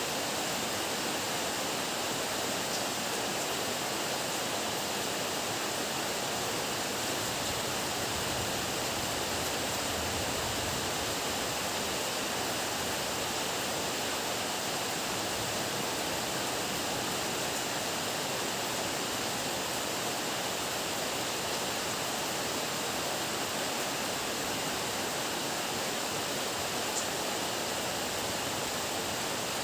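Heavy rain pouring steadily, an even hiss of downpour with no break.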